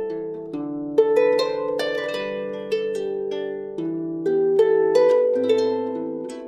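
Background music on a plucked string instrument: a melody of single notes and chords, each note struck sharply and left to ring out.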